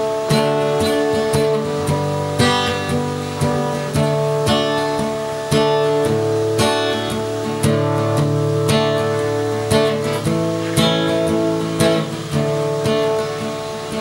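Acoustic guitar strummed alone in a steady rhythm, an instrumental break between sung verses.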